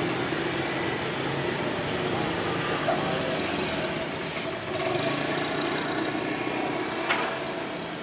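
Small motor scooter engine idling steadily close by, with a single sharp click about seven seconds in.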